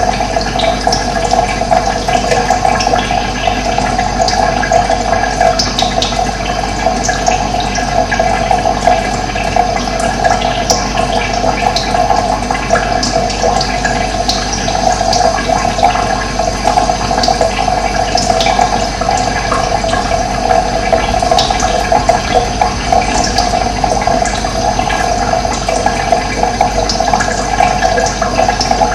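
Running water flowing steadily.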